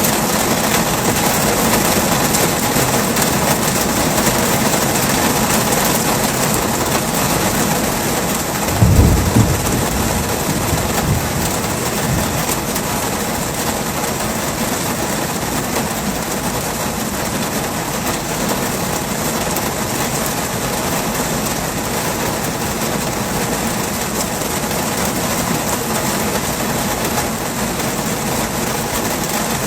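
Heavy rain falling in a steady loud hiss, with a brief low rumble of thunder about nine seconds in.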